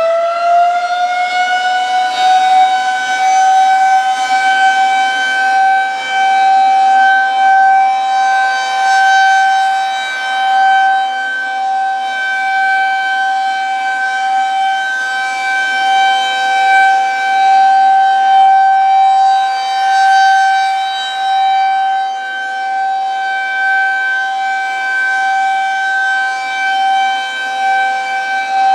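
Federal Signal 2001-SRN rotating electromechanical outdoor warning siren sounding its Full Alert steady tone. It finishes winding up in the first second or two, then holds one steady pitch with gentle swells in loudness.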